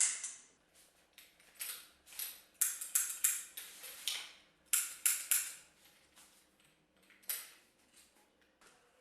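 Metal clicking and clattering in several short bursts: the parts of an old powder-actuated nail gun being handled and worked.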